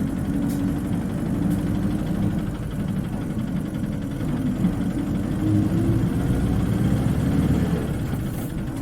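Isuzu Cubic KC-LV380N city bus engine running, heard from inside the cabin, its note holding fairly steady with small rises and falls and dropping slightly near the end.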